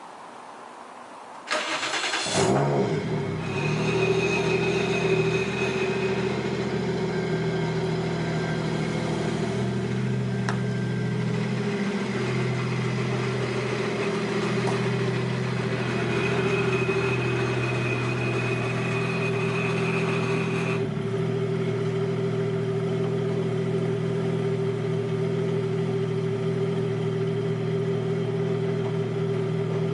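Toyota 1JZ-GTE turbo inline-six in a Nissan 240SX S13 cranking and catching about a second and a half in, then idling steadily from cold. About 21 seconds in the higher part of the sound drops away suddenly and the idle carries on steady and lower.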